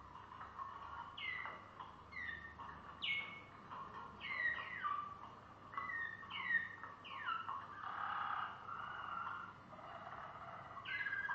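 Malinois Waterslager canary singing: a string of quick downward-sliding whistled notes, one after another, with a rougher, burbling stretch about eight seconds in and a long steady note starting near the end. This is the passage the owner wonders might be the 'carcajada' (laughing) tour.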